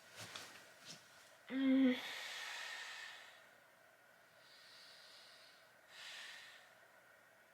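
A person's breathing: a short hum about one and a half seconds in, followed by a long sighing exhale, and another softer breath about six seconds in. A few faint clicks come in the first second.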